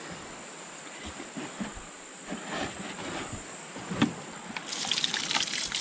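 Water trickling and lapping, with a few light knocks and one sharper knock about four seconds in; a louder hissing splash of water starts near the end.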